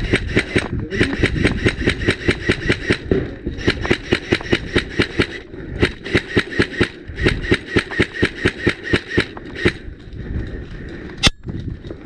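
Electric airsoft rifle, an LCT AK-12 with electric blowback, firing long full-auto bursts of about nine shots a second, with short pauses between the bursts. One single sharp click comes near the end.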